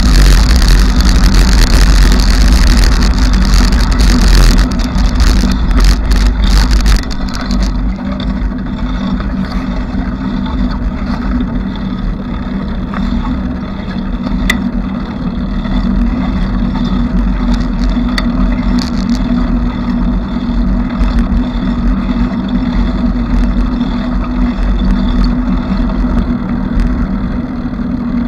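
Bicycle riding noise, a continuous rumble with hiss, loudest for the first seven seconds or so, then lower and steady.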